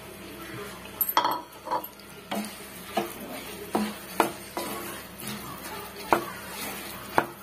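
Wooden spatula stirring boondi through sugar syrup in a nonstick frying pan. Irregular scrapes and knocks against the pan start about a second in and come about once or twice a second.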